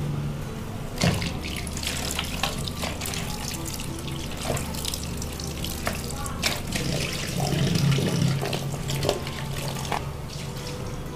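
Tap water running into a plastic basin of fish pieces in a stainless steel sink, splashing as the pieces are rinsed and rubbed by hand.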